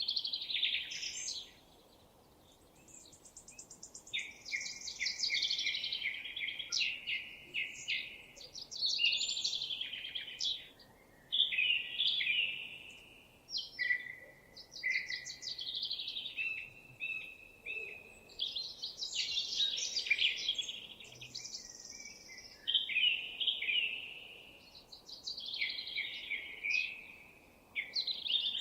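Songbirds singing, one quick warbling phrase after another with a short lull about two seconds in, at times overlapping.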